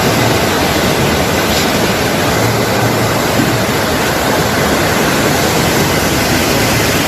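Loud, steady rush of fast-flowing floodwater, a constant roar of water.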